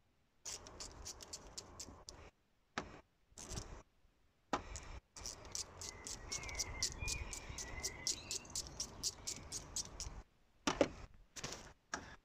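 Rapid, even clicking of a ratcheting screwdriver loosening a hose clamp on a car's throttle body. It comes in several runs with short pauses, the longest through the middle at about six clicks a second.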